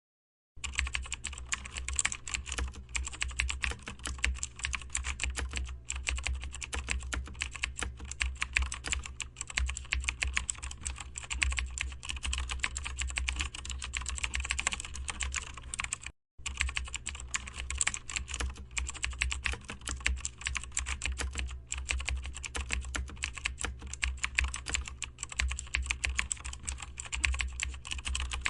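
Rapid, continuous typing on a computer keyboard, a dense stream of key clicks over a steady low hum. It stops for a split second about sixteen seconds in, then carries on.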